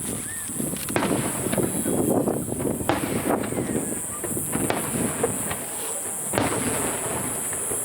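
Aerial firework shells bursting in a rapid-fire sequence, with about four sharp booms roughly two seconds apart.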